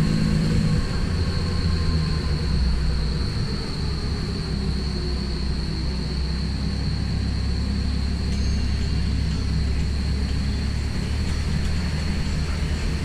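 Safari tram running, heard from on board: a steady low rumble of the moving tram, with a thin high tone held steady above it.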